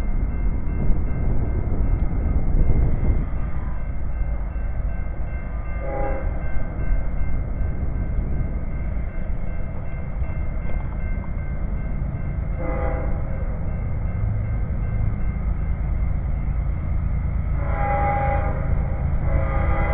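Nathan K5HLL five-chime air horn on a freight train's diesel locomotives, sounding a short blast about 6 seconds in, another around 13 seconds, then two longer blasts near the end, over the steady low rumble of the locomotives.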